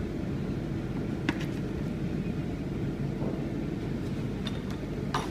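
A steady low machine hum, with a few sharp plastic clicks as a clear blister pack is handled, the loudest about a second in and two more near the end.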